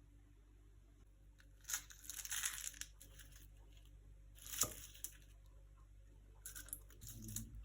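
Crisp baked puff pastry crackling and crunching as it is handled, in three short bouts with a sharper snap in the middle.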